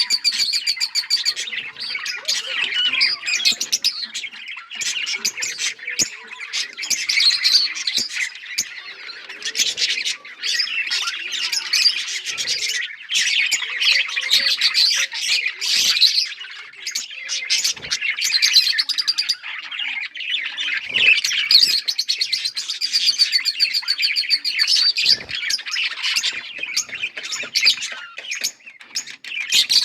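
A colony of budgerigars chattering, with many rapid, overlapping chirps and warbles and no pause.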